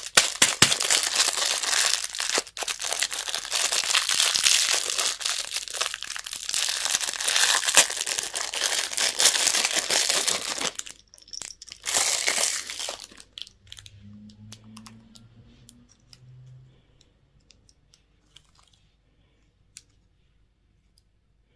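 Candy packaging being crinkled and torn open: dense, continuous crinkling and tearing for about eleven seconds, one more short burst about a second later, then only scattered light clicks and taps.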